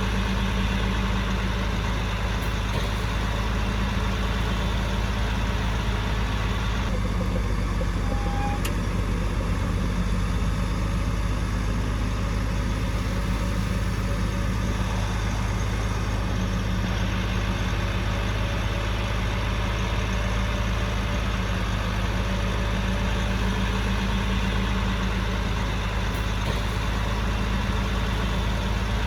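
Heavy diesel engine of an earthmoving machine running steadily, with a constant low drone and no change in speed.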